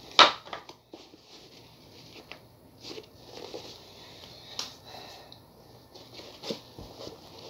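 Sneaker handling: soft rustling and light knocks as a leather high-top is lifted and its laces are pulled, following a short, sharp breath just after the start.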